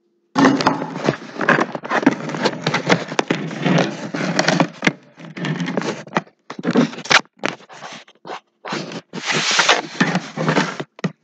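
Rasping scrubbing strokes, as rust is scrubbed off an old hammer's metal. The strokes run unbroken at first, turn choppy with short pauses about midway, then run steadily again.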